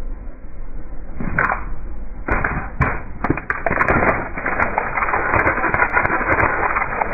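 Car tyre crushing a tray of plastic disposable lighters: a first burst of cracking a little over a second in, then from about two seconds on a dense run of plastic cracking and snapping as the lighters break apart.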